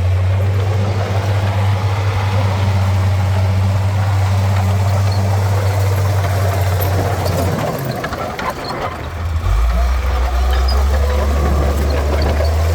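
Heavy diesel earthmoving machine running with a deep, steady engine note. About two-thirds of the way through the engine note drops lower, then rises again near the end.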